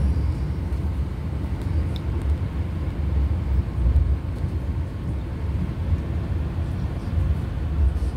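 Passenger train running along the track, heard from inside the carriage: a steady low rumble of wheels and running gear.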